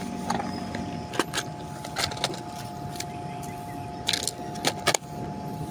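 Small metal lures and treble hooks clicking and rattling against a clear plastic tackle box as one is picked out: a few separate clicks spread over several seconds, over a steady faint hum.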